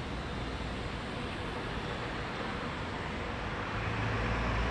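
Steady rumble and hiss of a tram running, heard from inside the car, with a low hum growing louder about four seconds in.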